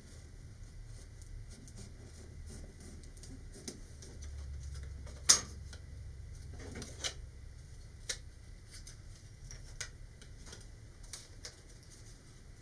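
Light clicks and taps of a hobby knife freeing a ring from a laser-cut parts sheet, and of the sheet and parts being handled on a cutting mat, with one sharper click about five seconds in. A low steady hum runs underneath.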